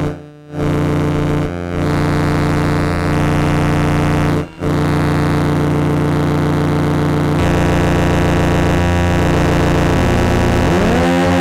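Analog modular synthesizer playing a dense, distorted noise drone thick with sustained tones, broken by brief dropouts just after the start and about four and a half seconds in. Near the end a cluster of tones glides upward and settles into a steady chord.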